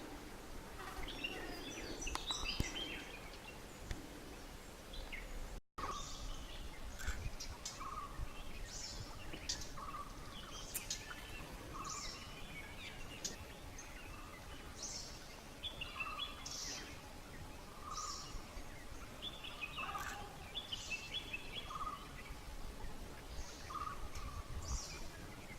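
Birds calling outdoors. After a brief break about six seconds in, one short call with a low note and higher chirps repeats about every second or so.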